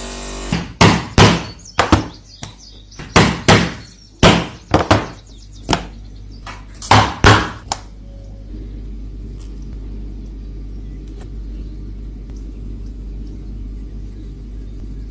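Hammer striking a hole punch through a leather watch strap: about a dozen sharp knocks, often in quick pairs, over the first eight seconds. After that only a low steady background remains.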